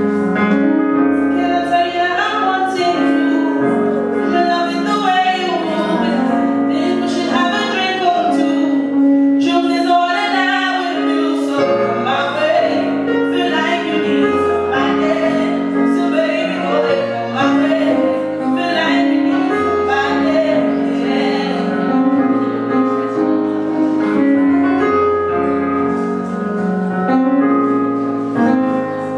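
A woman singing into a microphone, accompanied by a keyboard playing sustained chords.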